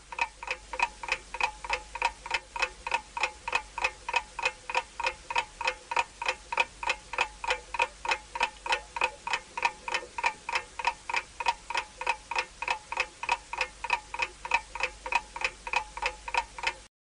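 Clock-ticking countdown sound effect: sharp, evenly spaced ticks at about three a second, each with a short ringing tone. It marks time running out on the timer, and it cuts off abruptly near the end.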